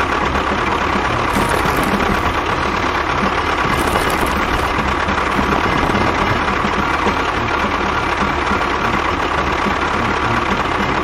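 Small engine running steadily at idle, with an even low pulsing.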